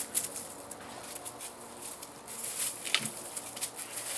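Rustling and light crunching of dry fallen leaves under a running puppy's paws, irregular and crackly, with one sharper click about three seconds in.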